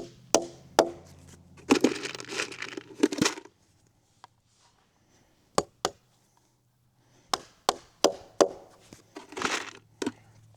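Hammer striking nails to tack plastic plates onto a wooden beam: sharp knocks in small groups of two to four, with scuffing and handling noise in between.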